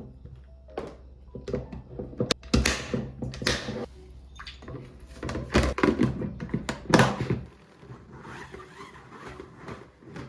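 Household handling sounds in a small room: a string of knocks and thunks, like containers or a cupboard door being handled, with stretches of rustling, over a low hum that stops about three-quarters of the way through.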